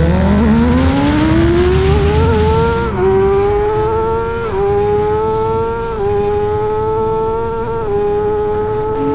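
Kawasaki Ninja ZX-6R inline-four engine at high revs, accelerating hard through the gears. Its pitch climbs steadily, then four quick upshifts come about every one and a half seconds, each a small dip in pitch before it climbs again.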